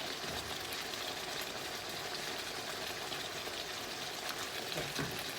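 Vegan chicken and vegetables sizzling in a hot pan over high heat: a steady, even frying hiss.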